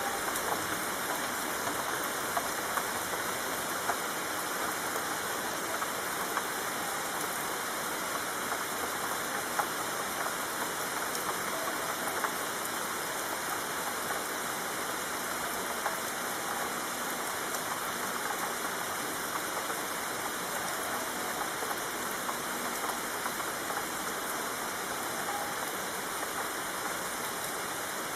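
Heavy rain falling steadily: a dense, even hiss of countless drops with small patters throughout.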